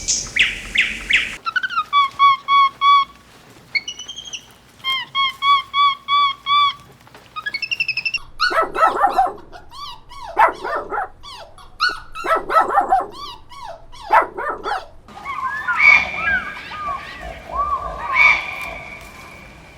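A string of animal calls: first runs of short, evenly repeated whistle-like notes, then from about halfway longer calls that rise and fall in pitch, and several calls overlapping near the end.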